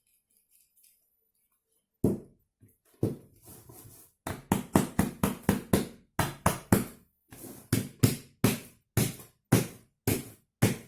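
A lidded jar packed with pine cones and sugar being shaken, the cones knocking against the jar in a quick rhythmic series of thuds that starts about two seconds in.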